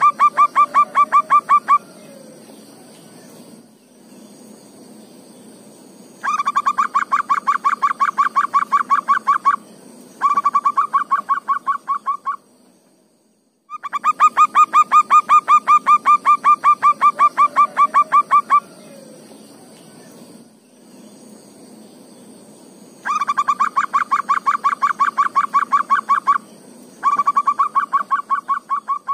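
Zebra dove (perkutut) calling in runs of rapid, evenly spaced clipped notes, about ten a second. Each run lasts two to five seconds, with short pauses between runs and the same sequence repeating.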